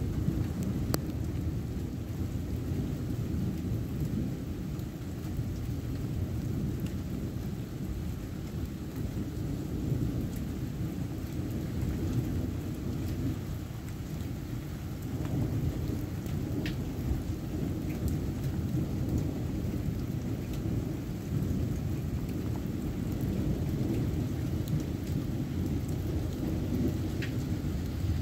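Thunderstorm: rain falling steadily with a low rolling rumble of thunder throughout, and a few sharp ticks of drops.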